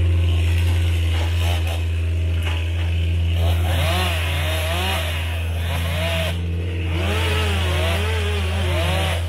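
Chainsaw cutting wood in two stretches, starting about three and a half and seven seconds in, its pitch rising and falling as it works. Under it runs a steady low engine hum.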